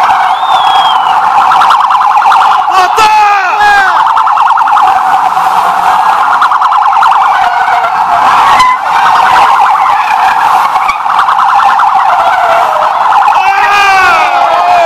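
Several police sirens sounding together as the vehicles pass, loud. A fast-warbling tone runs throughout, with wailing sweeps rising and falling over it in the first few seconds and again near the end.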